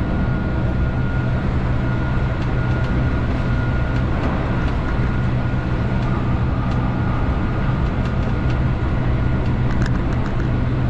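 Keihan 8000 series electric train running steadily along the line: a continuous low rumble of wheels on rail with a faint steady high whine, and a few light clicks near the end.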